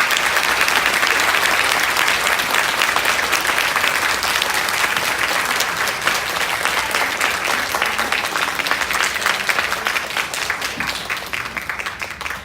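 Audience applauding, a dense steady clapping that slowly dies down and stops near the end.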